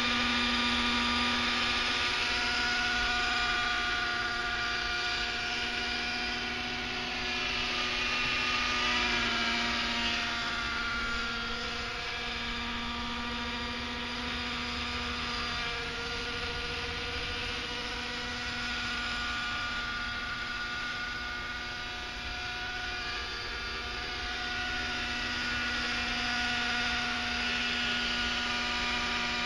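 Two-stroke glow (nitro) engine of an Align 600 radio-controlled helicopter running in flight: a steady high-pitched engine buzz whose pitch shifts a little a few times as the helicopter manoeuvres.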